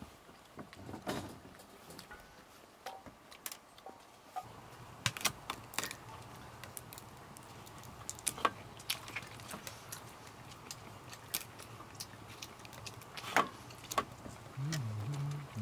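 Scattered small clicks and knocks, as of objects being handled, over a faint low steady hum that comes in about four seconds in.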